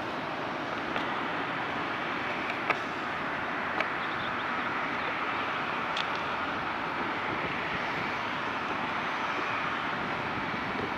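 Boeing 737-800's CFM56-7B jet engines at low taxi power, a steady rushing hum, with a few sharp clicks, the loudest about three seconds in.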